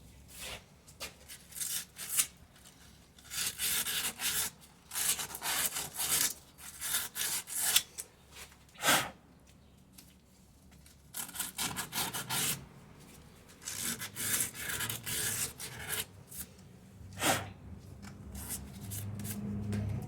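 Repeated scrubbing strokes from hand-cleaning a car part, coming in uneven runs with short pauses between them.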